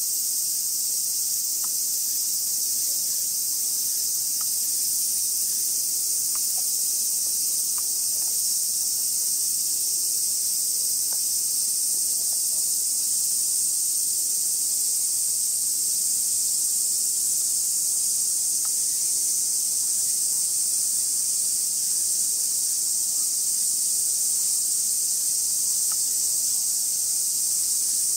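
Steady high-pitched chorus of summer insects, unbroken and even throughout, with a few faint clicks beneath it.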